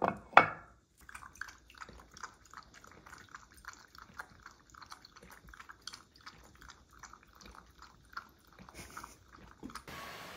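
A ceramic dog bowl set down on a wooden feeding stand with two sharp clacks, then a dog lapping milk from it, quick rhythmic laps about three or four a second.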